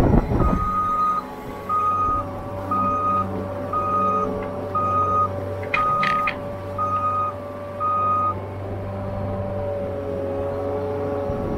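Skid loader's reverse alarm beeping about once a second, eight beeps in all, over its engine running steadily; the beeping stops about eight seconds in as the machine stops backing, with a brief clank around six seconds.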